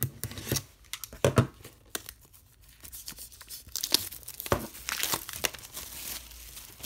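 Plastic shrink wrap being slit with a utility knife, then torn and peeled off a Blu-ray steelbook case: irregular crinkling and tearing with sharp crackles, loudest about a second in and again midway.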